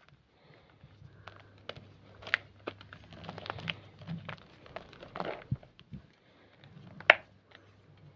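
Homemade grey gym chalk crunching and crumbling as it is crushed, in irregular crisp crackles and snaps, the sharpest one about seven seconds in.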